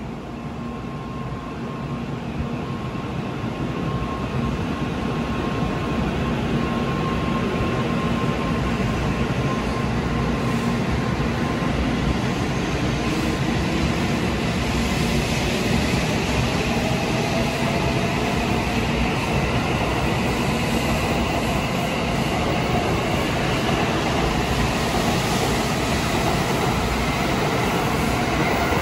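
N700-series Tokaido Shinkansen train pulling out of the station: a steady rolling rumble and hiss that swells over the first few seconds. From about halfway, the traction motors' whine rises slowly in pitch as the train gathers speed.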